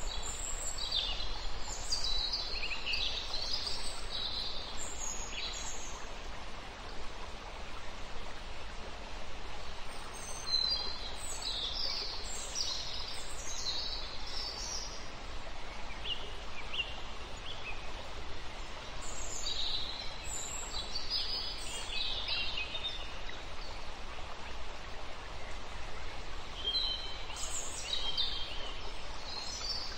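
Small birds chirping in several bouts of quick high calls, over a steady background hiss.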